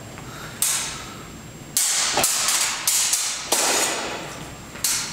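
Steel practice sabres, an 1850s Swedish army pattern, clashing in free sparring: about six sharp blade-on-blade strikes spread irregularly, each trailing off briefly.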